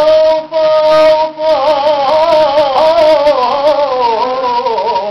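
A man singing Lebanese mijana–ataba folk song, solo: a long held note, then a wavering, ornamented line that slowly sinks in pitch.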